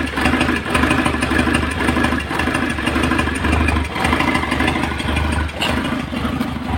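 Kia Carens D4EA diesel engine idling roughly and misfiring, its low running sound dipping unevenly every second or so. It is running on a temporarily fitted ECU from a Hyundai Santa Fe, not coded for this car, after the original ECU was found faulty.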